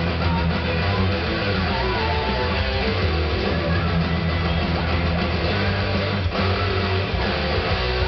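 Electric guitar playing heavy metal, a dense, continuous sound with strong low notes.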